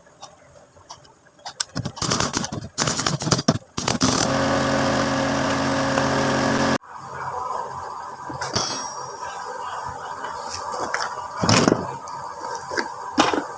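Metal parts and tools rattling and knocking, then a small motor-driven tool running steadily at one pitch for about three seconds before cutting off suddenly, followed by lighter clinks and one sharp knock near the end.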